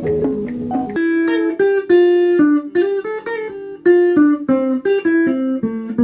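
Outro music: a guitar plucking a melody note by note. About a second in, the fuller backing with bass drops away, leaving the single picked notes.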